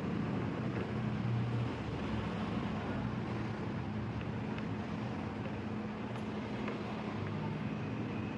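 Steady road traffic noise from a street close by: an even rumble with a low hum.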